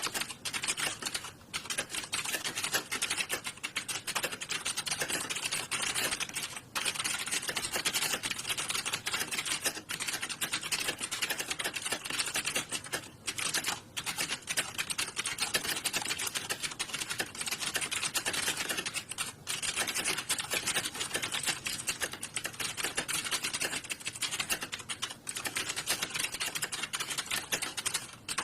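Fast, continuous typing on a computer keyboard, a dense run of key clicks broken by a few brief pauses.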